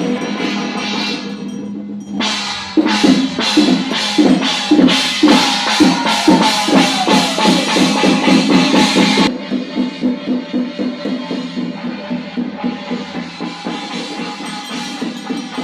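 Music with drums and percussion over a steady pitched line. About two seconds in, a loud stretch of evenly spaced strikes begins, about two to three a second, and it drops back quieter after about nine seconds.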